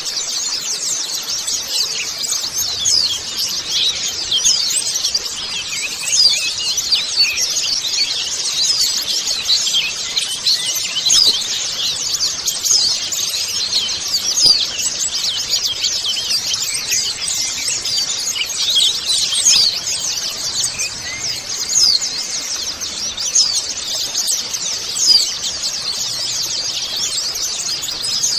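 A group of white-eyes (pleci) chattering together: many high, thin chirps and short trills overlapping without pause.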